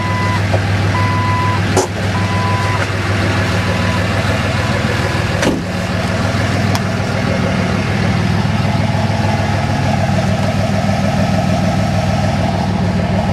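Dodge Ram diesel pickup's Cummins inline-six turbodiesel idling steadily. It is loud enough that the noise-suppressed gas compressors running beside it cannot be heard. A short electronic beep sounds three times, about a second apart, in the first few seconds.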